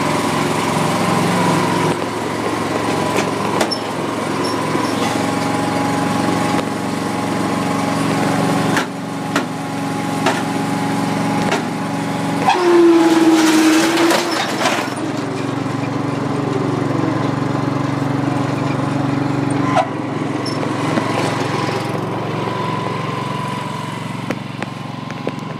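Small Ford tractor's engine running steadily while the tractor is driven. The engine note changes and grows louder for a couple of seconds about halfway through, then settles back to a steady run.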